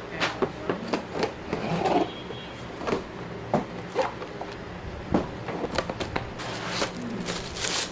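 Irregular sharp clicks and knocks with scraping and rustling between them, and a longer scraping noise near the end.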